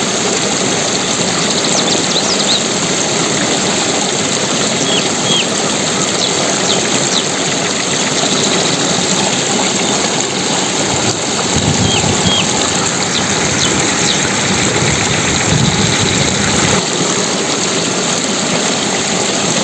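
Steady rush of flowing water, with a few faint short high chirps scattered through it. A deeper low rumble joins in for several seconds past the middle.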